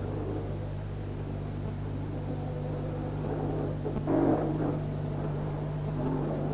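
Steady low hum with faint, indistinct sounds over it and a short louder burst about four seconds in.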